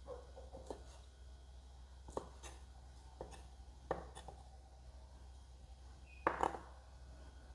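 A kitchen knife cutting sausage on a thick round wooden chopping board: a handful of separate knocks of the blade on the wood, spaced unevenly about a second apart, with the loudest pair about six and a half seconds in.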